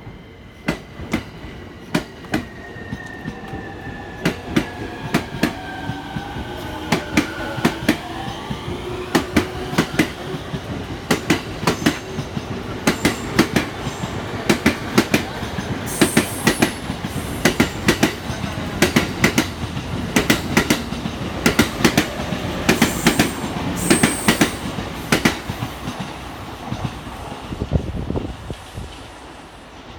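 E231-series electric train pulling out and accelerating past, its wheels clattering over rail joints faster and faster, with the motor inverter whine falling in pitch and then rising. Brief high wheel squeals twice partway through, and the sound fades near the end.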